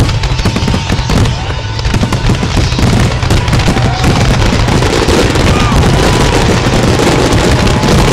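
Fireworks finale: a rapid, continuous barrage of aerial shell bursts and crackle, with wind buffeting the microphone under it as a heavy low rumble.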